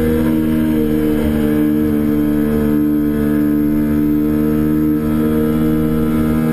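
2008 Kawasaki Ninja 250R's parallel-twin engine running under throttle at steady revs through a corner. It is a constant, loud engine note with only slight wobbles in pitch.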